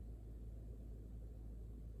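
Steady low background hum, room tone with no distinct sounds.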